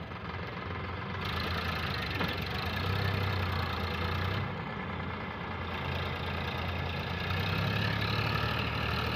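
Sonalika tractor's diesel engine running under load as it pulls a trolley heaped with soil, its steady hum swelling about three seconds in and again near the end.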